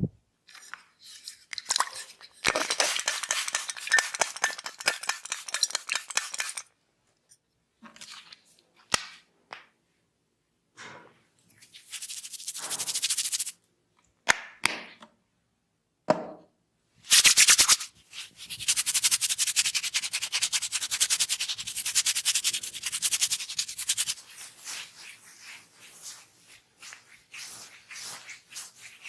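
Close, dense crackling of hair being worked by hands and comb during a head massage. It comes in spells of a few seconds, with single sharp clicks and short silences between them.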